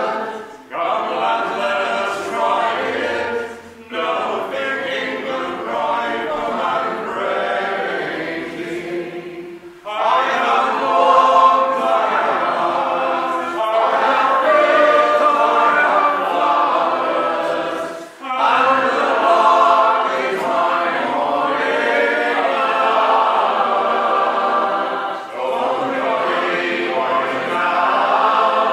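Male voices singing a folk song unaccompanied in close harmony, with short breaths between phrases about 4, 10 and 18 seconds in.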